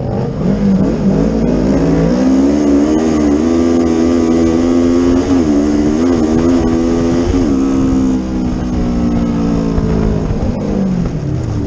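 Sprint car engine heard from inside the caged cockpit, running at high revs on a dirt track, its pitch dipping briefly twice in the middle, then falling steadily over the last few seconds as the car slows.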